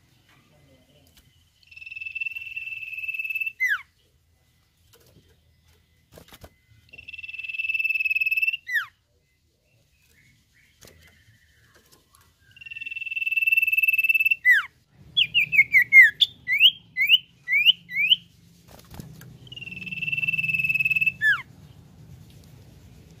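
Common iora (cipoh) singing its long-whistle song: four drawn-out, level whistles of about two seconds each, each ending in a quick downward slur. A run of about seven short, quickly slurred notes comes in the middle.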